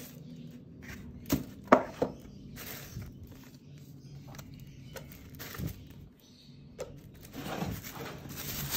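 Cardboard shoebox and paper being handled: a few sharp taps and knocks as the lid comes off and is set down in the first two seconds, light handling of a paper card, then tissue paper rustling and crinkling near the end.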